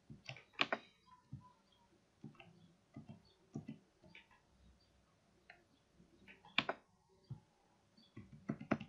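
Faint, irregular clicks of a computer keyboard and mouse as numbers are typed into a table, a few keystrokes at a time with short gaps between.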